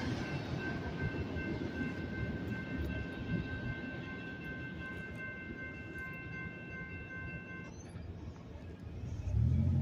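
Grade-crossing warning bell ringing steadily over the fading rumble of the passing freight train. The bell cuts off suddenly about three-quarters of the way through, as the crossing gates begin to rise. Near the end, a road vehicle's engine rumble comes up.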